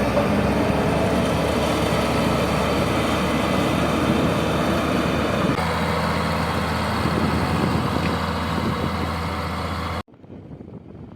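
Heavy diesel engine of a construction machine running steadily. The sound changes abruptly about halfway through and drops suddenly to a much quieter background near the end.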